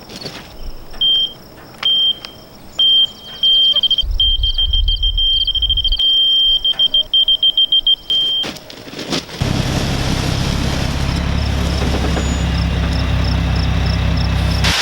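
Electronic warning beeper sounding a high steady tone: a few short beeps, then a long tone with small breaks, then quick pulses several times a second. The beeping stops, and about nine seconds in a loud, steady low drone begins.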